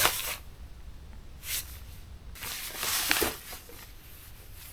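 Rustling and brushing noises from a hiker moving: parka fabric and steps through bush, in a few short bursts with a longer one about halfway through, over a low rumble.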